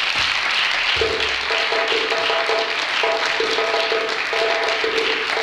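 Audience applauding, with instrumental music coming in about a second in: a short figure of steady held notes repeating over the clapping.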